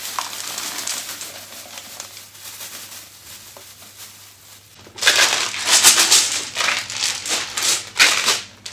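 Dry cat kibble being mixed: a plastic bag rustles faintly, then about five seconds in the kibble starts rattling loudly in a plastic storage container, shaken in repeated strokes.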